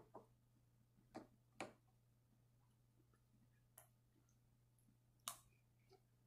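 Spoon clinking and scraping against a cereal bowl while scooping cereal with milk: about half a dozen faint, sharp clinks, the loudest about five seconds in.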